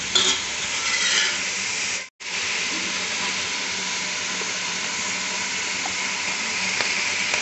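Mutton pieces sizzling in hot oil in a pot, at the stage where the meat's own water has cooked off and the oil has separated, so the meat fries. A slotted spatula stirs through them during the first second or so, then after a short gap about two seconds in the sizzling goes on steadily.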